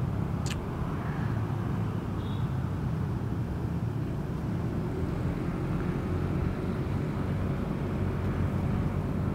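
Steady low rumble of a vehicle driving, engine and road noise, with a sharp click about half a second in and a brief high chirp about two seconds later.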